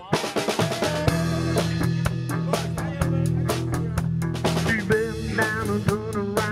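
Rock music with a steady drum beat and bass, with a bending lead line coming in near the end.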